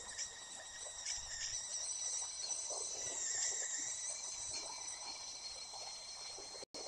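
Tea kettle whistling at the boil: a steady, high, thin whistle that sags slightly in pitch about three seconds in, over a faint hiss, cutting out for an instant near the end.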